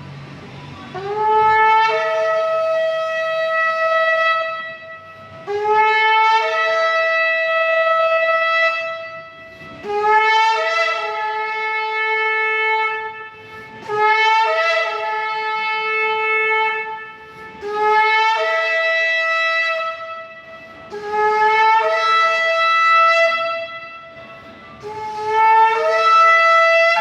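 Shofar (ram's horn) sounded in a series of about seven long blasts, a few seconds each. Each blast starts on a lower note and jumps up to a higher one, with short breaths between.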